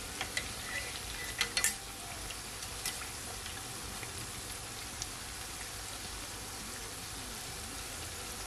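Festival dumplings deep-frying in hot oil: a steady sizzle, with a few sharp clicks of a spatula against the pot as they are turned, mostly in the first two seconds.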